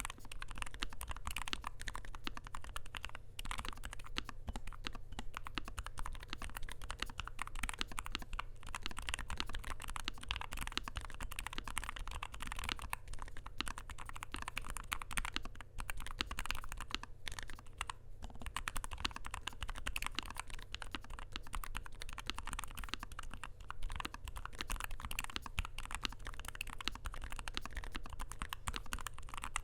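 Fast, continuous typing on a NuPhy Air60 V2 low-profile mechanical keyboard with an aluminium plate, its Gateron Low-profile 2.0 Red linear switches and stabilizers lubed and the case foam-dampened, with a few brief pauses.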